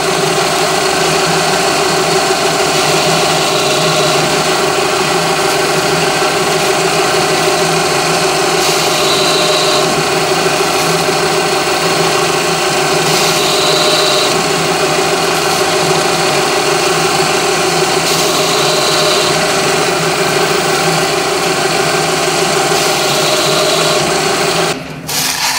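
Small milling machine's spindle motor running steadily, turning a cork-faced engine-turning tool charged with pumice powder against an aluminium sheet; a brief higher hiss comes back about every four to five seconds. The machine stops about a second before the end.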